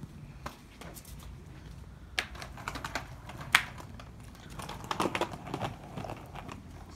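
Small plastic skateboard rolling slowly over paving slabs, its wheels rumbling low, with scattered sharp clacks; the loudest clack comes about three and a half seconds in, and a cluster follows around five seconds.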